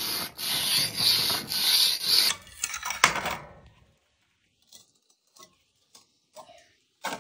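Knife blade stroked back and forth across a wet whetstone, a scraping rasp that swells about twice a second with each stroke. A little over two seconds in it breaks off, leaving a few weaker scrapes and then near quiet with faint clicks.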